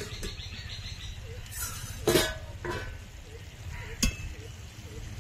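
A steel plate used as a lid is lifted off a metal kadai and set down with a metallic clatter about two seconds in, and a metal spatula clinks sharply against the pan about four seconds in. Faint bird chirps repeat in the background.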